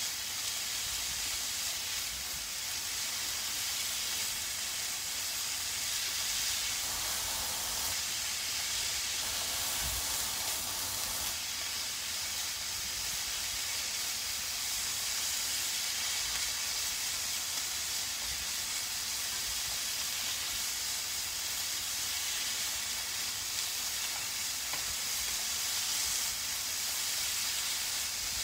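Julienned burdock root and carrot sizzling steadily as they are stir-fried and tossed in a frying pan.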